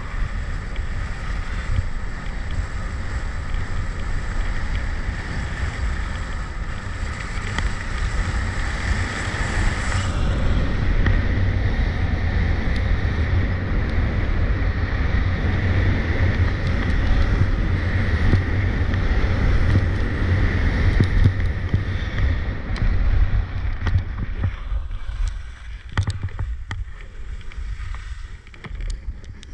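Wind buffeting the microphone and skis hissing and scraping over icy snow on a fast downhill run. The rush eases near the end as the skier slows, with a few sharp clicks.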